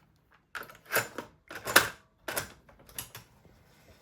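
Sanyo M 9900 cassette deck's transport keys being pressed: a series of about six sharp mechanical clunks as stop, rewind and play are worked in turn.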